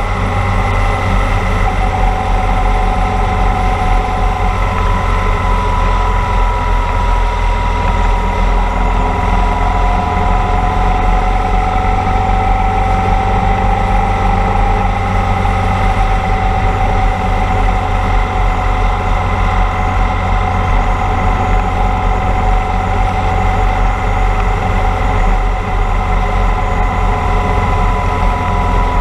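Motorcycle cruising at a steady speed: an even engine note under loud wind noise rushing over a helmet-mounted camera.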